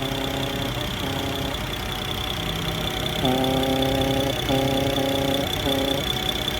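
BMW N54 twin-turbo inline-six idling, with a pitched humming drone that comes and goes, returning about halfway through and cutting out briefly several times, over a steady high whine. The intermittent hum is the weird noise the owner traces to the right side of the engine bay at idle.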